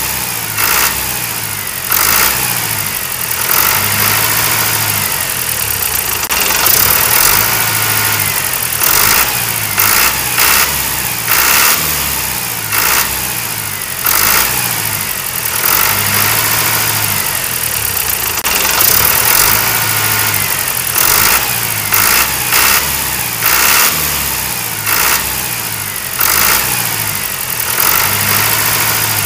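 Tractor engine sound, running and revving in a loop that repeats about every four seconds.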